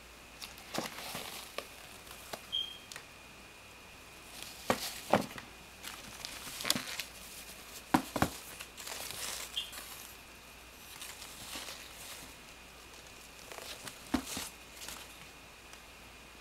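Handling noise as a sneaker is turned over in the hands and moved about near its shoebox: scattered knocks, taps and rustles, a few of them sharp.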